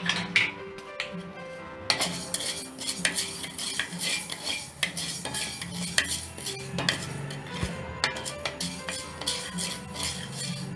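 A utensil scraping and clinking against a metal pan in quick, irregular strokes, stirring fenugreek seeds as they dry-roast toward golden brown.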